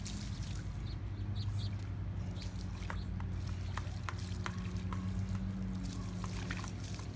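Water from a garden hose splashing and trickling onto a wet concrete driveway, with a steady low hum underneath.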